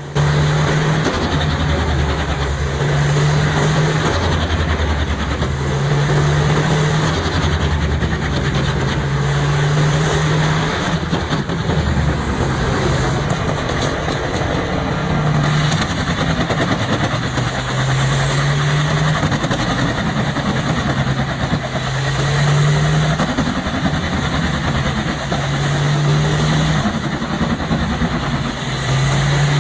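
Pezzolato PTH 1400/1000 drum wood chipper's diesel engine running under load while a log is chipped. The engine note shifts down and back up every few seconds as the drum bites into the wood, over a steady grinding hiss of chipping.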